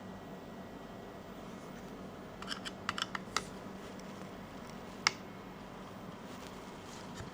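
Small sharp clicks of a precision screwdriver working at a tiny screw that won't come out: a quick cluster of clicks about two and a half seconds in, then a single louder click about five seconds in.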